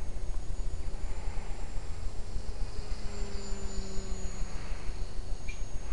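Cox Zero radio-control model warplane flying high overhead, its small high-revving engine a thin, distant whine that wavers slightly in pitch, with a lower hum joining it briefly about halfway through. Wind rumbling on the microphone lies under it throughout.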